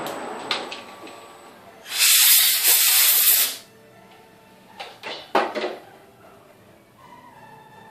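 Machine noise dying away in the first second, then a loud pressurised hiss lasting about a second and a half, followed by two short hisses about a second later. Faint music comes in near the end.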